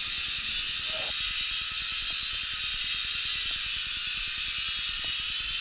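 Small toy quadcopter's four propellers and motors whirring steadily in a hover, a high, even, hiss-like whine.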